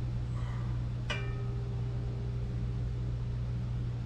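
A single clink as the glass measuring cup knocks against the stainless steel mixer bowl about a second in, with a short ring after it, over a steady low hum.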